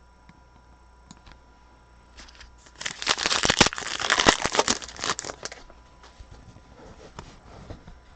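Crackly wrapper of a Gridiron Kings football card pack being torn open and crinkled by hand. It runs for about three seconds, starting about two seconds in, then fades.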